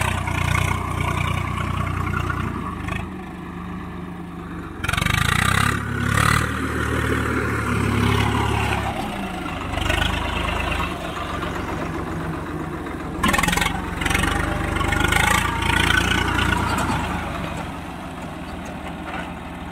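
Swaraj 855 FE tractor's three-cylinder diesel engine running under load as the tractor pulls a loaded trolley through soft, sinking field mud. It revs up harder about five seconds in and again near thirteen seconds.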